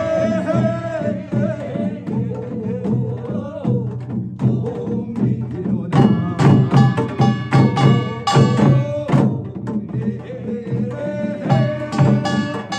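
Binari, a Korean ritual chant sung by a man, over a steady rhythm beaten on janggu hourglass drums. The voice holds long notes in the first few seconds and again near the end, while the drum strokes keep on throughout.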